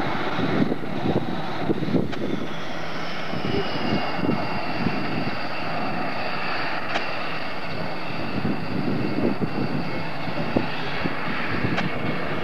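B-1B Lancer's four General Electric F101 turbofan engines running as the bomber rolls along the runway. A high jet whine falls slowly in pitch over the first few seconds, then holds steady over the engines' rushing noise.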